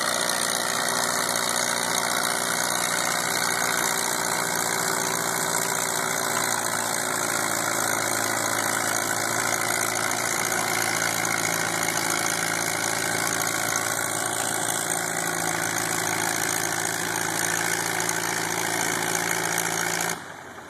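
Tractor engine at a tractor pull running steadily at a constant pitch, with a dense hiss over it; the sound cuts off abruptly near the end.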